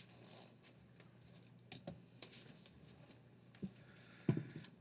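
Paper being handled on a desk: faint rustles and a few light clicks, with a louder soft knock near the end.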